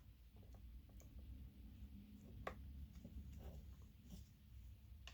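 Near silence with faint rustling and scattered small clicks from hands threading a leather lace through a hole in a leather sheath, one sharper click about halfway through.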